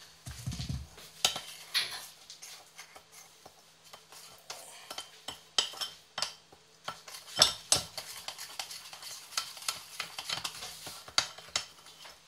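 Metal teaspoon stirring and scraping around a ceramic bowl, mixing boric powder, sugar and water into a paste: a quick, irregular run of clinks and scrapes, with a couple of duller knocks, one about half a second in and one past the middle.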